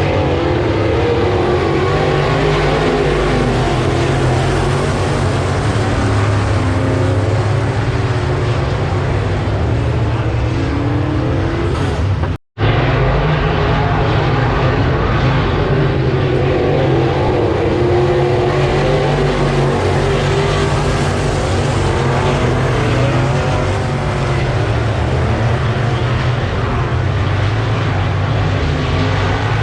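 Race cars running laps on a dirt oval, several engines droning together with pitch that rises and falls as they lap. The sound drops out completely for an instant about twelve seconds in.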